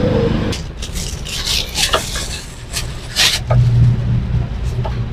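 Background music stops about half a second in, leaving street noise from motorbike and car traffic with a low engine hum that swells about three and a half seconds in. Scattered sharp clicks and rustles of handling run over it.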